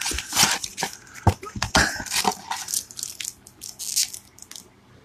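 Crinkling and rustling of foil card packs and cardboard packaging handled by hand as a booster box is unpacked: irregular crackles and light taps, busiest in the first half and thinning out toward the end.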